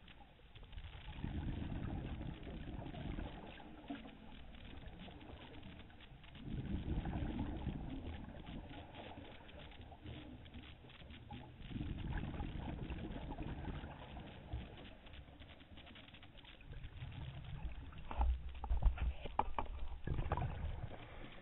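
Scuba regulator breathing heard underwater: a low rumbling gurgle of exhaled bubbles four times, about every five seconds, with quieter hiss between breaths. A few sharp knocks near the end.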